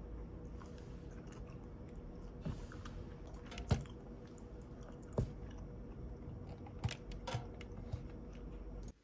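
Steady low hum with a faint held tone, over which several light, sharp clicks and taps fall irregularly; the hum cuts off abruptly near the end.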